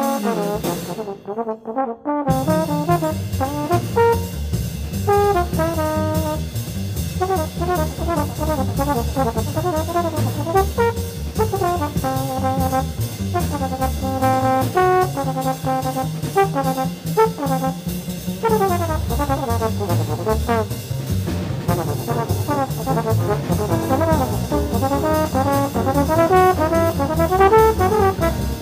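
Trombone playing a fast, clean bebop solo line in a 1953 small-group jazz recording, with low bass notes and drums underneath. There is a brief break about a second in.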